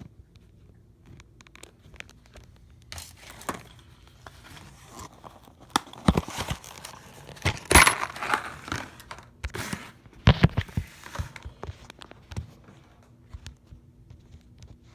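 Packaging being handled and opened: irregular crinkling, rustling and clicks, loudest about eight seconds in.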